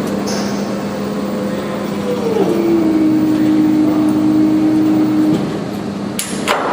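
A machine motor whines steadily over a low hum, dropping in pitch about two seconds in and cutting off a few seconds later, followed by a couple of sharp knocks near the end.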